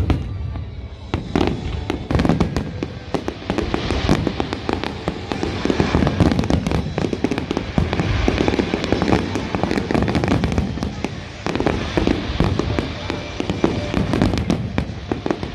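Fireworks display: a dense, near-continuous barrage of bangs and crackling.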